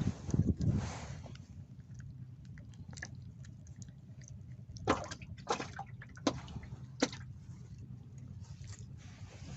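Water sloshing for about the first second, then several short, sharp splashes or knocks.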